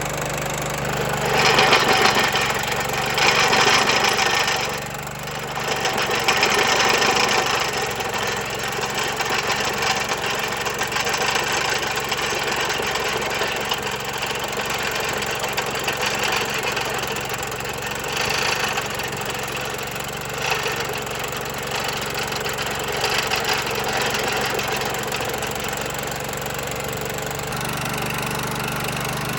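Vermeer SC30TX stump grinder's engine running steadily while its cutter wheel grinds into a tree stump, throwing wood chips. The grinding swells in loud surges in the first several seconds and a few more times later on.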